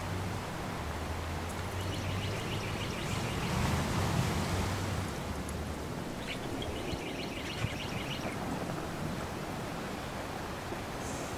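Outdoor wind noise with a bird singing two quick trills of high chirps, one about two seconds in and another about six and a half seconds in, over a low steady hum in the first half.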